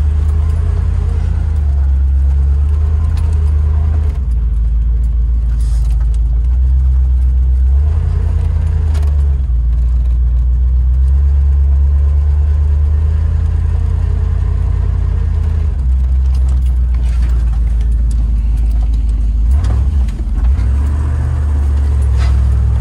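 Range Rover Classic's V8 and drivetrain heard from inside the cabin while driving on a dirt trail: a deep, steady drone that steps up and down in pitch every few seconds as the throttle changes, with a brief break near the end and occasional light rattles in the cab.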